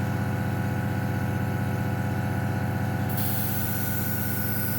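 Airbrush compressor running with a steady hum; about three seconds in the airbrush starts spraying with a hiss as paint is laid on.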